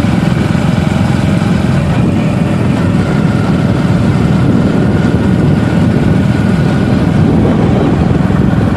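Motorcycle running steadily while being ridden along a road, its engine a constant low drone.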